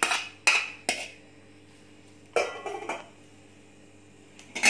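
A steel spoon knocking against a steel strainer and a glass bowl while boiled noodles are scraped out. There are two sharp clinks in the first second, a rattling clatter about two and a half seconds in, and one loud knock near the end.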